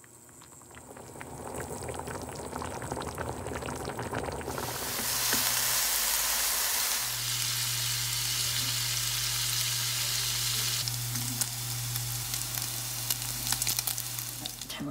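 Kimchi stew with canned tuna simmering and bubbling in a steel pot. About four and a half seconds in, it gives way to bite-sized pieces of meat sizzling loudly as they fry in a nonstick pan. A steady low hum runs underneath.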